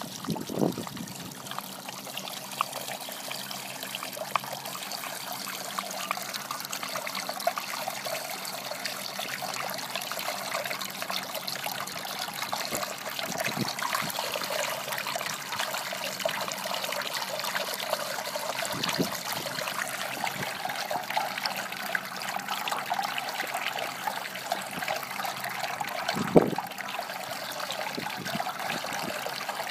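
Water trickling steadily from the spout of an outdoor dog water fountain into its stainless steel bowl while a dog laps from it, with a few short knocks, the loudest near the end.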